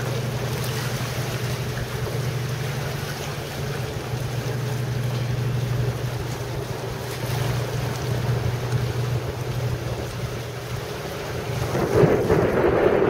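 A small fishing boat's engine drones steadily as it motors out of the harbour, under wind on the microphone and water. About twelve seconds in, a louder rush of wind on the microphone comes in.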